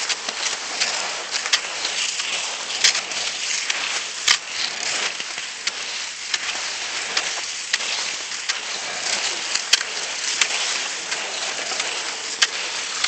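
Cross-country skis sliding over groomed snow: a steady scraping hiss, broken by a few sharp clicks at irregular moments.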